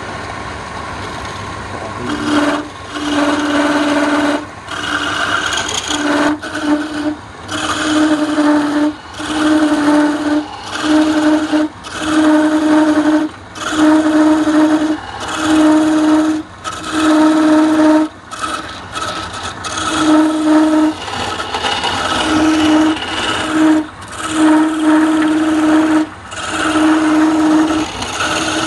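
Hand chisel cutting into red wood spinning on a lathe. It makes a series of cuts about every second and a half, each a steady drone lasting about a second, with the lathe running between cuts.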